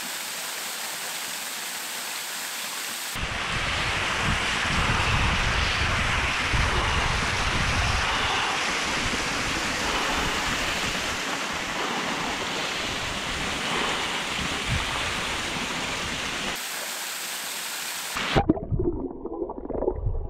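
Small waterfall pouring into a plunge pool, a steady rush of water. From about three seconds in, the water sounds closer and deeper, with sloshing and lapping around a wading swimmer. Near the end it turns muffled and underwater, with bubbling.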